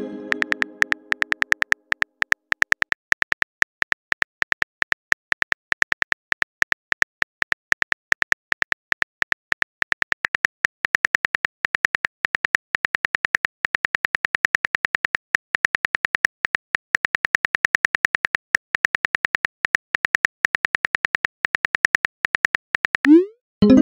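Simulated phone keyboard typing clicks, a rapid steady run of several taps a second as a long text message is typed. Near the end comes a short rising whoosh, the message-sent sound.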